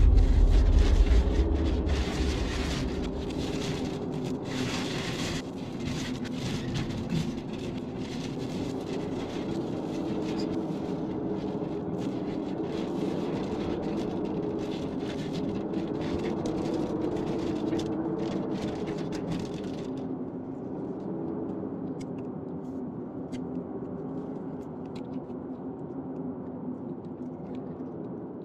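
Car engine and road noise heard from inside the cabin while driving on a dirt road: a steady drone under a hiss. Music fades out in the first couple of seconds, and the higher hiss cuts off suddenly about twenty seconds in, leaving the low drone.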